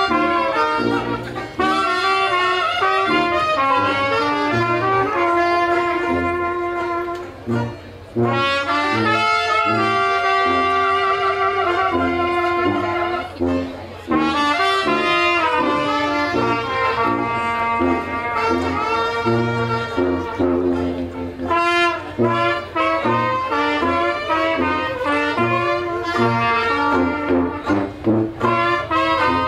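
Jazz band playing, brass instruments carrying the melody over a walking bass line.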